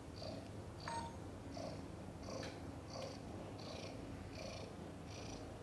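Heavily pregnant domestic cat purring steadily, each breath in and out coming through as an even rhythm about every 0.7 s. A short sharp click about a second in.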